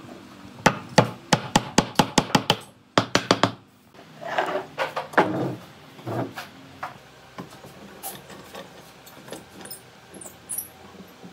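Hand-tool woodworking on wood: about a dozen sharp knocks in quick succession, then a few rough scraping strokes and scattered lighter knocks.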